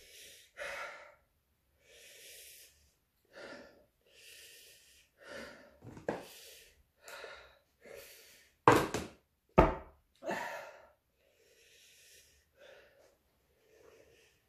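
A man breathing hard in and out through mouth and nose, short gasping breaths about once a second, from a mouth burning with capsaicin after eating hot chilies. Two sharp knocks about nine seconds in.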